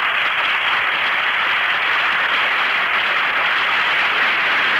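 Audience applauding: a steady, even wash of clapping that swells up just before and holds throughout. It comes through old, narrow broadcast audio with no treble.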